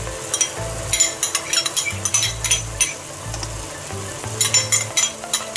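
Chicken and mushrooms cooking in liquid in a wok, with a metal spoon clinking and scraping against a small ceramic bowl as sauce is spooned into the pan: a steady sizzle under a run of short clicks.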